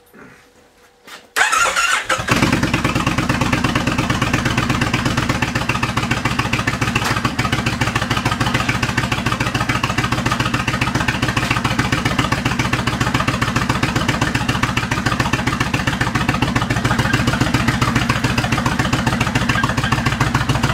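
Cold start of a 2004 Kawasaki Vulcan 1500's V-twin with the choke pulled out: a brief crank about a second and a half in, then it catches and settles into a steady, evenly pulsing idle. The exhaust goes through Vance & Hines Longshots pipes fitted with the quieter baffles.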